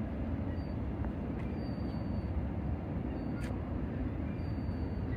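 Outdoor waterside ambience: a steady low rumble, with a few short, high bird chirps over it.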